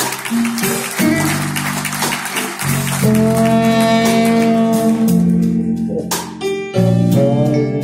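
Live jazz-blues band playing: saxophone and trombone lead over electric guitar, keyboards and drums, with long held horn notes. Partway through, the saxophone drops out and the trombone takes the lead.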